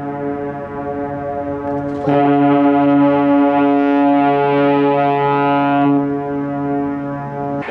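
Ship's horn sounding one long, steady blast of several tones at once, louder from about two seconds in.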